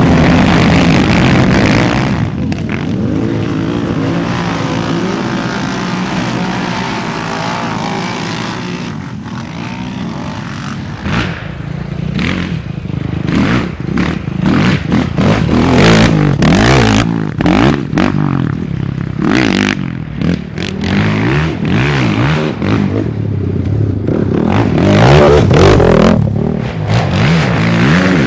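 Racing quad (ATV) engines: a pack of quads running hard, dying away over the first few seconds, then single quads revving up and down with repeated throttle blips and cut-offs as they ride through loose sand.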